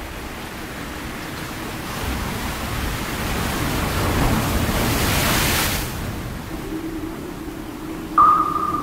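Underwater rush and hiss of water and bubbles as fin swimmers pass the camera. It swells to its loudest as a swimmer's bubbles sweep right past the lens, then drops away about six seconds in. A low steady hum follows, and near the end a higher steady tone starts suddenly.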